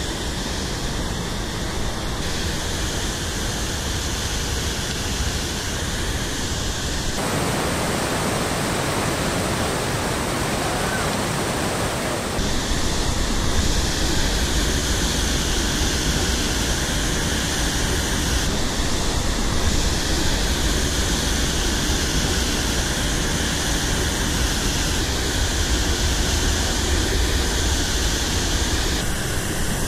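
Rushing whitewater of the Potomac River's Great Falls rapids, a loud, steady noise without any pitch whose tone shifts abruptly every few seconds.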